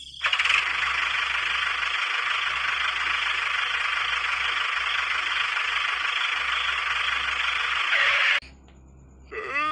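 Steady tractor-engine noise for a driving miniature toy tractor, cutting off suddenly about eight seconds in. Near the end a pitched call with wavering pitch begins.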